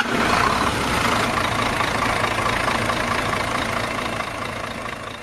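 Truck engine sound effect laid under an animated logo intro: a steady engine noise that slowly fades out towards the end.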